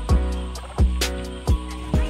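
Background music with a steady beat: deep kick-drum hits that drop in pitch, hi-hats and held chords.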